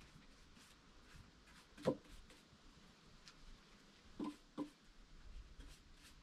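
Faint scratchy strokes of a paintbrush working stain into wooden boards, with one sharp knock about two seconds in and two lighter knocks close together a little after four seconds.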